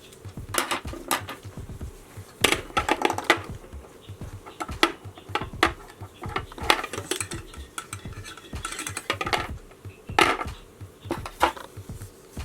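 Irregular clicking, clinking and rattling of small hard parts being handled on a work surface, louder in several short clusters.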